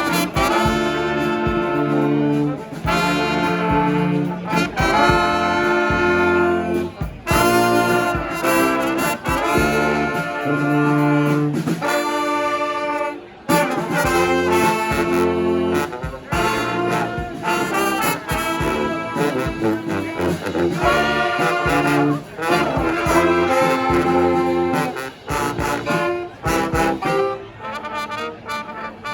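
Brass band playing live: horns with many overtones over a strong low bass line, in a steady rhythm, thinning out a little near the end.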